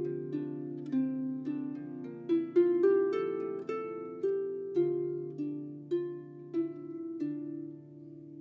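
Background music: a gentle melody of plucked string notes, about two a second, over a low held bass note. The last note rings out near the end.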